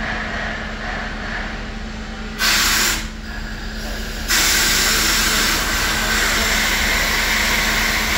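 Steam locomotive 3801, a streamlined NSW C38 class Pacific, standing and letting off steam. A loud hiss of steam bursts out about two and a half seconds in and stops half a second later, then starts again about four seconds in and carries on steadily over the engine's low hum.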